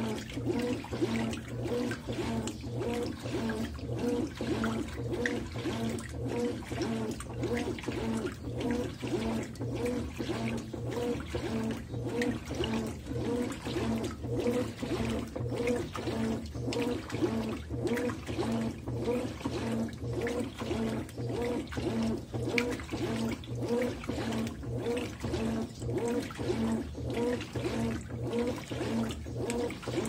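Consul CWE13AB 13 kg top-load washing machine agitating at agitation level 4: water and clothes slosh in a quick, steady back-and-forth rhythm, with the motor's hum pulsing at each stroke of the agitator.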